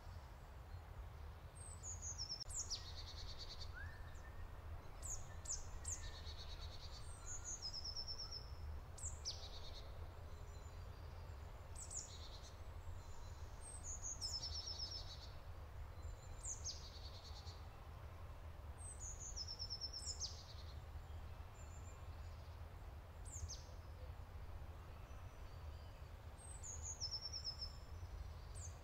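Songbirds singing: short, high phrases of falling notes and quick trills, repeated every second or two, over a steady low rumble.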